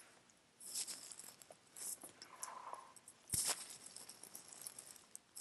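Faint rustling and soft taps of a paper picture book being handled, its pages brushed and shifted by hand, with one sharper tap a little over three seconds in.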